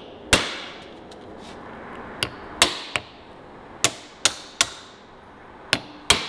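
A hammer striking the end of a Phillips screwdriver seated in a stuck reservoir screw on an MG tandem brake master cylinder, to shock the threads loose and seat the tip. About nine sharp knocks, each with a short ring, come irregularly: one near the start, then clusters after a pause of about two seconds.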